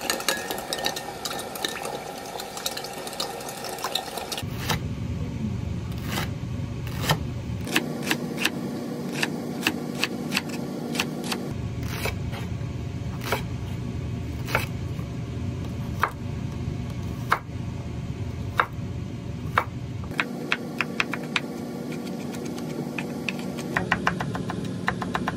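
A spoon stirs sauce in a glass mug, clinking and scraping against the glass. Then a chef's knife slices leek on a wooden cutting board, each stroke a sharp tap on the board about once a second, and near the end it taps quickly while mincing garlic. A steady low hum sits underneath.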